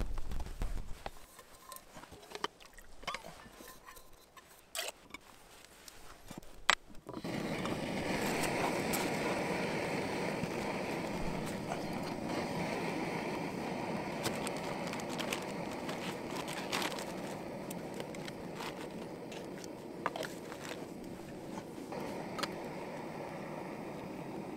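Small clicks and scrapes of gear being handled, then a sharp click about seven seconds in and a steady rushing hiss that carries on: a camp gas stove burner lit to heat water for coffee.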